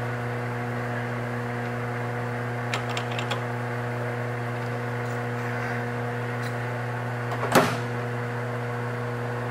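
Engine lathe running at about 320 RPM, a steady hum, with a few light clicks around three seconds in and a single sharp knock at about seven and a half seconds. No cutting or chatter is heard.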